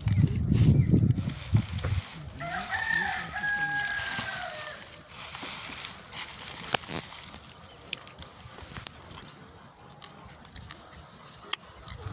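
A rooster crowing once, a single long call starting about two seconds in and lasting roughly two and a half seconds. Before it comes a loud low rumble in the first second and a half, and after it a few brief high chirps.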